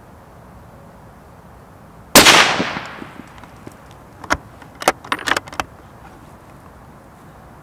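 One shot from a Sako S20 bolt-action rifle in .308, a loud sharp report that rings off over most of a second. About two seconds later comes a quick run of sharp metallic clicks as the bolt is worked to eject the case and chamber the next round.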